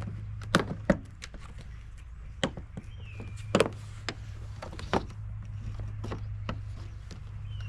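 Plastic housing panels of an inverter generator being handled and fitted back on, giving a series of sharp clicks and knocks over a steady low hum.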